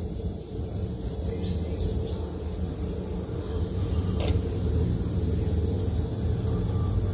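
Steady low rumble of a gas burner flame under a pot of water coming to the boil, with one sharp click about four seconds in as ingredients go into the pot.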